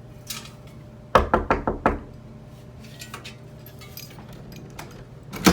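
Knocking on a locked door: a quick run of about five sharp knocks starting about a second in, then a single sharp knock near the end.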